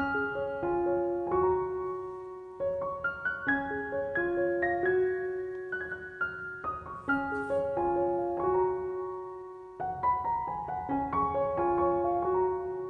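Background piano music: a slow melody of single notes and chords, each note ringing and fading.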